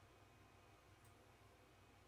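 Near silence: room tone with a faint steady low hum and one faint tick about halfway through.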